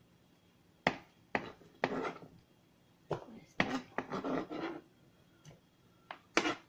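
Peeled squash being cut on a plastic cutting board: about nine or ten irregular sharp knocks, some with a short crunch as the blade goes through the firm flesh.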